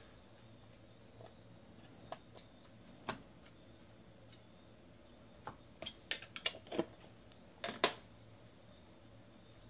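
A stack of baseball trading cards handled by hand: a few soft ticks, then a quick run of small sharp clicks and taps from about halfway through, the last and loudest as the stack is set down on the table.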